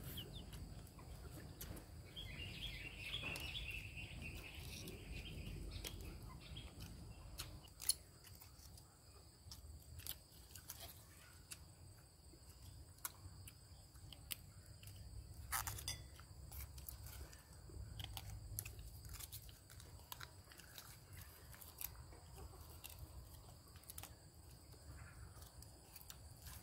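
Faint eating sounds of a hand-eaten meal: chewing, fingers working rice, and sharp clicks of clam shells being opened, the loudest about eight and fifteen seconds in. A chicken calls for a few seconds near the start.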